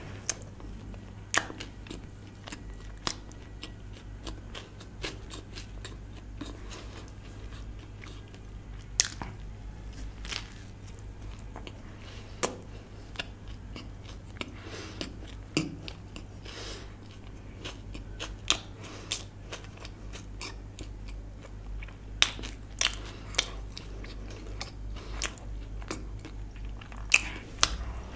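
Close-miked eating: bites and chewing with irregular sharp smacks and clicks, over a steady low hum.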